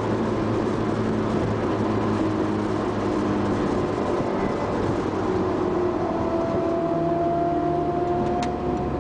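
Car engine and road noise heard from inside the cabin while driving on a race track, steady at first, with the engine note rising slowly over the last few seconds. One faint click near the end.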